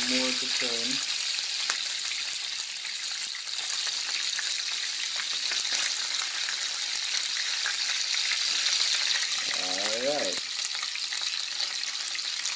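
Whole sprats frying in hot oil in a pan: a steady high sizzle with fine crackling spatters.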